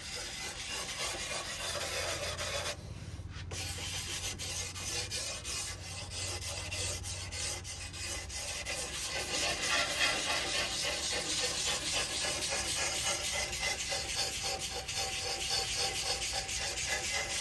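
Sandpaper on a block rubbing against the trailing edge of a hydrofoil wing in repeated hand strokes, with a short pause about three seconds in. The edge is being sanded round to stop the foil from whistling.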